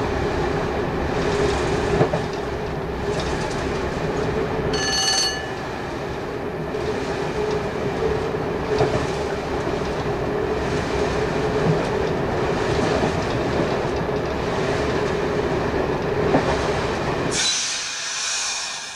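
Class 117 diesel multiple unit heard from the driving cab while running: a steady drone of the underfloor diesel engines and wheels on the rails, with a few light rail-joint clicks. A brief high whistle-like tone sounds about five seconds in. Near the end the low drone drops away and a high metallic squeal comes in.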